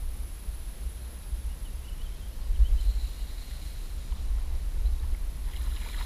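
Wind rumbling on the camera's microphone by a lake shore, a steady low buffeting, with a faint high thin tone briefly about halfway through.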